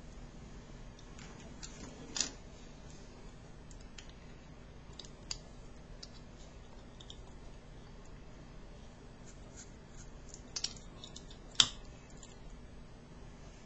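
Scattered small clicks and taps as a tobacco pipe is puffed on and handled, the sharpest about two seconds in and another late on, over a faint steady hum.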